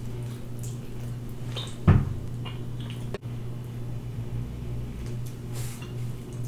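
Quiet eating sounds: a few short mouth clicks and smacks while licking barbecue sauce off the fingers and picking at rib meat, the loudest about two seconds in, over a steady low hum.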